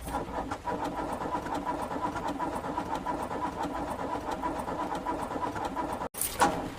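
A car engine is being cranked by its starter in a rapid, even rhythm but does not catch. The owner puts this down to rain-wet spark plugs. The cranking breaks off briefly near the end.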